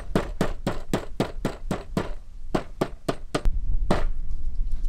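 Metal meat-tenderizer mallet pounding a raw octopus on a fillet table in quick, even blows, about four to five a second, stopping about four seconds in. The octopus is being beaten to tenderize the meat.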